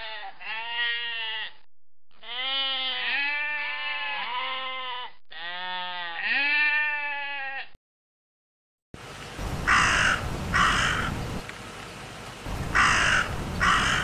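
Sheep bleating over and over for about eight seconds, stopping abruptly. After a second of silence a crow caws in two quick pairs over a low noisy background.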